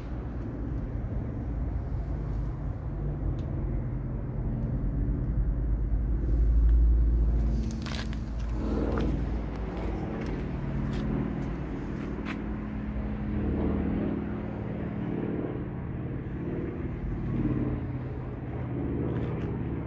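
Outdoor motor-vehicle rumble, steady and low, swelling loudest about six to eight seconds in, with a few sharp clicks and knocks after that.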